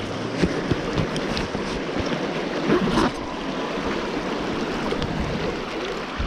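River water rushing over rocky shoals, a steady wash, with a few light knocks and clicks.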